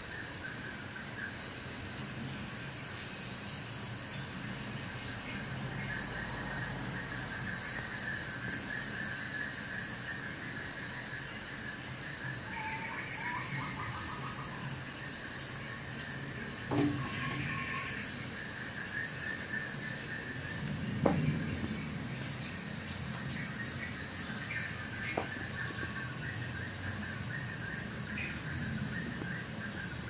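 Insects chirping in repeated trills of rapid pulses, each about a second and a half long and coming every few seconds. Two short knocks cut in, about halfway through and again a few seconds later.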